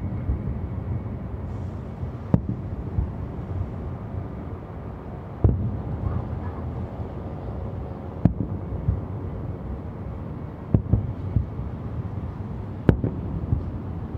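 Aerial fireworks shells bursting in the distance: sharp bangs every two to three seconds, each followed by a rolling low rumble, over a steady low background roar.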